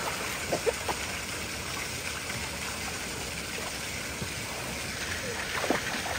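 Swimming-pool water splashing and lapping as children swim, over a steady rush of water, with the splashing growing louder near the end.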